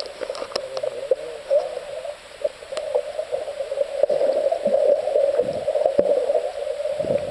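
Underwater sound of a swimming pool heard through a submerged camera: a steady, muffled rushing with scattered bubble clicks and the churning of a child swimming underwater close by. It grows louder in the second half.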